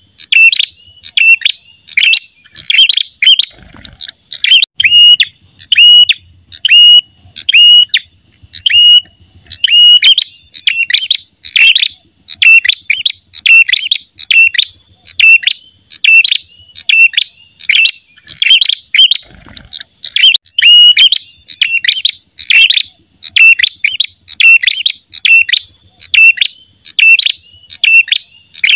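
Ashy tailorbird (prenjak kepala merah) giving its loud fighting call: sharp chirping notes repeated about two to three times a second without pause. This is the aggressive territorial call used to lure or train other birds.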